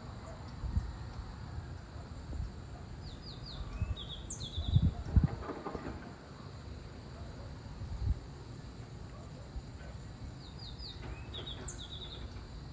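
A bird sings a short phrase of quick, high, descending chirps, twice. Under it runs a steady low rumble with a few dull thumps, the loudest about five seconds in.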